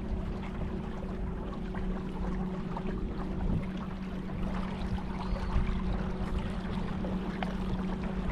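A boat motor running steadily at a constant pitch, with the rush of water and air around the boat.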